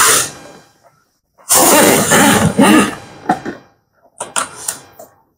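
Cardboard packaging being handled: two loud scraping, rustling bursts, the second about two seconds long, followed by a few light knocks and clicks.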